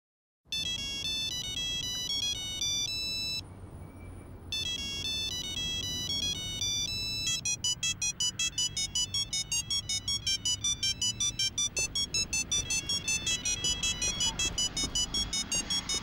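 Monophonic mobile-phone ringtone playing a beeping electronic tune. It breaks off for about a second early on, then about seven seconds in switches to a fast, even run of beeps, about five a second.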